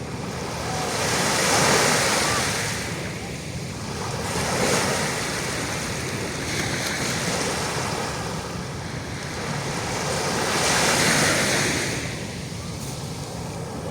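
Ocean waves breaking and washing up the shore as a continuous rush of surf that swells and ebbs. The loudest surges come about two, five and eleven seconds in.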